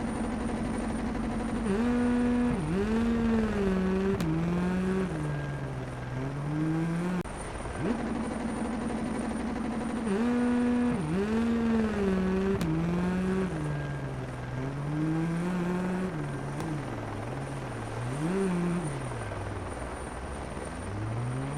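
A 1/10 RC rally car's motor revving up and down as it accelerates and slows, its pitch rising and falling repeatedly, with a few sudden drops like gear changes.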